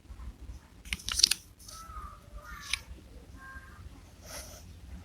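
Paper packaging being handled: crinkling and crackling with a few sharp clicks, and a couple of short squeaky sounds.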